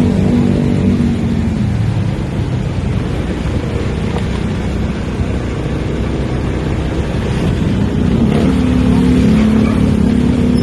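Motorcycle engine running while riding through town traffic, with wind rushing on the microphone. The engine's hum stands out at the start, fades under the rush of wind and road noise, and comes back from about eight seconds in.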